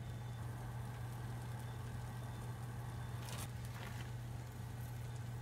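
Steady low hum of a running kitchen appliance, with a faint brief rustle a little past the middle.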